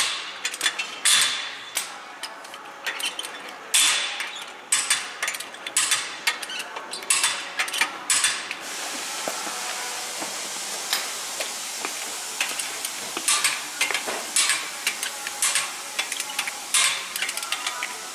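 Hand wrench on a car's wheel lug nuts: rapid metallic clicks and clinks as the nuts are given a final tightening by hand. In the middle the clicking pauses for a few seconds of steady hiss, then resumes.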